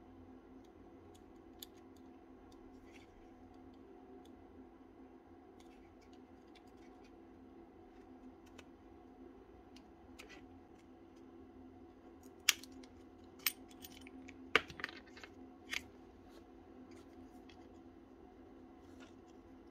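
Scattered light clicks and taps of small tool parts being handled and worked on, with several sharp clicks between about twelve and sixteen seconds in, over a faint steady hum.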